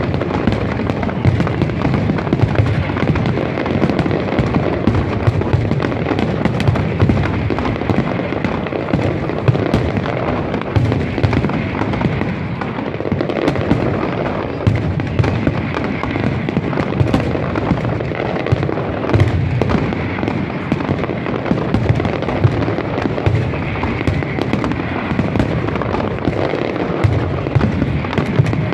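Fireworks display in a dense barrage: aerial shells bursting in rapid, overlapping bangs and crackles with hardly a pause.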